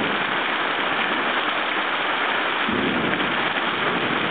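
Heavy tropical downpour: hard rain pouring steadily onto a pool and patio, a dense unbroken hiss. A lower rumble joins in about two-thirds of the way through.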